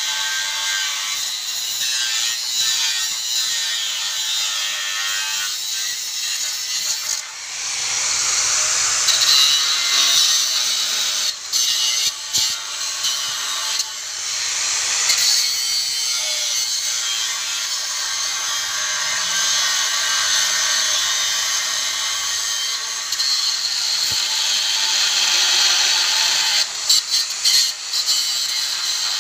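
Bosch GWS 060 angle grinder with a cutting disc cutting through rusty steel angle iron: a continuous, loud, high grinding screech. It dips and flickers briefly a few times as the disc's contact with the steel changes.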